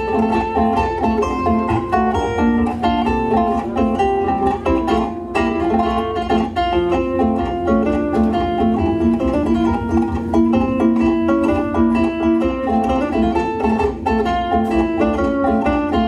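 Zither played live: a plucked melody over chords, many notes sounding together and changing quickly.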